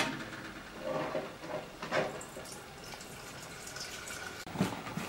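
Chickens in a yard giving a few soft, short clucks, with a small knock at the start.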